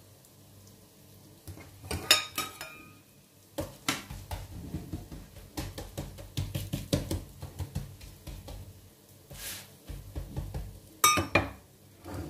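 A spatula knocking and scraping on an electric griddle plate while msemen dough is pressed and spread on it, with sharp ringing clinks about two seconds in and near the end.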